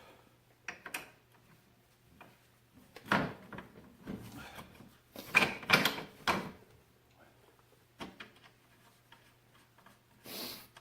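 Clunks, clicks and scraping of metal parts being handled and pushed together as a CV axle is worked into place on an ATV's front end, in several short bursts, the loudest about five to six seconds in. A faint steady hum runs underneath.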